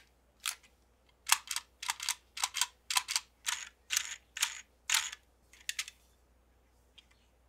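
Hard plastic toy transformation device being handled and turned over: a quick run of short clicks and scrapes, two or three a second, that stops about six seconds in.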